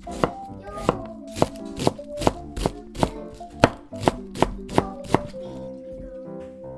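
Chef's knife chopping turnip and turnip greens on a wooden cutting board: a dozen or so sharp knocks, about two a second, stopping about five seconds in.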